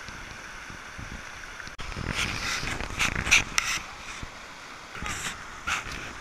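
Fast-flowing mountain river rushing over rocks, with louder splashing from about two to four seconds in and again near the end as hikers wade through the current.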